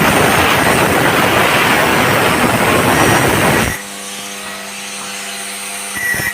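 Power tool grinding metal with loud, dense noise. Just under four seconds in, the sound cuts abruptly to a quieter, steady hum.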